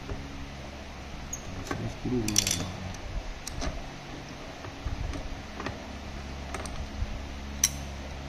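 Light metallic clicks and clinks of a screwdriver and screw as a TV stand leg is unscrewed and pulled off the back of a TV. The loudest cluster of clicks comes about two seconds in, with a single sharp click near the end, over a low steady hum.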